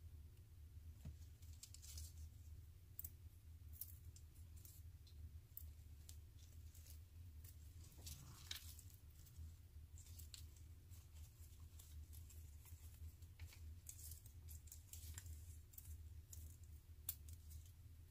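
Faint rustling and scattered light clicks of artificial floral stems being handled and sorted, over a low steady hum.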